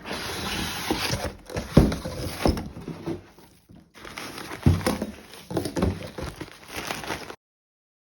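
Hands unpacking vacuum-cleaner accessories from cardboard and paper packaging: rustling and crinkling with several sharp knocks of plastic parts being handled and set down. The sound cuts off suddenly near the end.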